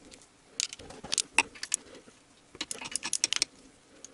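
Small metal parts clinking and clicking together in the hands. The taps come in two short clusters, about half a second in and again around three seconds.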